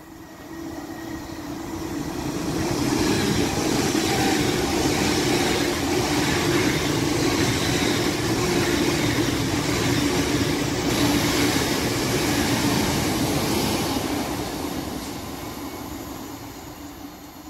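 An LNER electric express train running past on the main line. Wheel and rail noise comes with a steady low hum. It builds over the first few seconds, holds loud, and fades away over the last few seconds.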